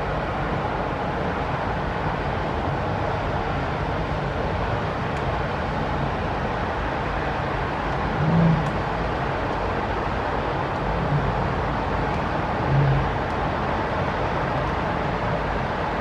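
Steady wash of outdoor city noise with distant traffic, and two brief low rumbles, one about halfway through and another about three-quarters in.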